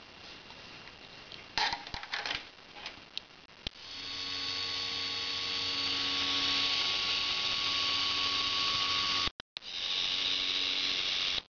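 Small 10 rpm geared motor of a homemade electric telescope focuser, run on 4.5 V, turning the focuser through a rubber roller, with a steady whine and hiss. It starts about four seconds in after a few clicks and knocks, cuts out for a moment near the end and starts again.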